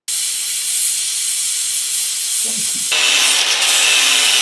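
Brazing torch flame hissing steadily on the steel joint during silver brazing; about three seconds in, an angle grinder takes over, grinding the brazed joint clean, a little louder and fuller.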